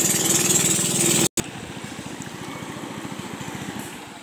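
Small motorboat engine running steadily with a fast even pulse. About a second in the sound cuts out for an instant, then the engine carries on much quieter and fades.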